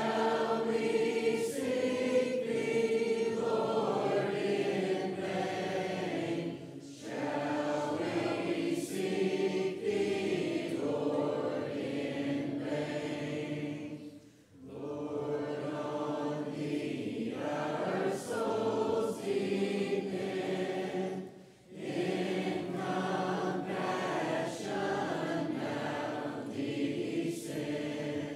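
Congregation singing a hymn together, unaccompanied, in lines of about seven seconds with a short breath pause between each line.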